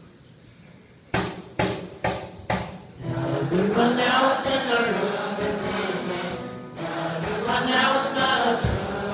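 Four sharp hits about half a second apart, then a group of teenage boys singing together in sustained, gliding notes.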